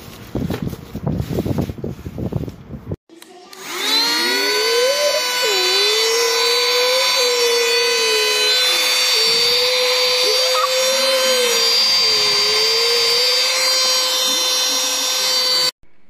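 Crackling handling noise, then a portable mini handheld vacuum cleaner's motor spins up about three seconds in. It runs with a loud, steady high whine and a lower tone that wavers up and down, and cuts off just before the end.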